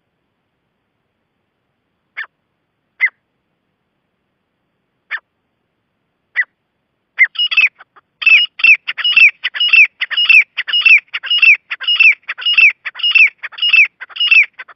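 Gray francolin calling: a few single sharp calls spaced a second or more apart, then from about seven seconds in a fast, even series of repeated high notes, each dropping in pitch, about two to three a second.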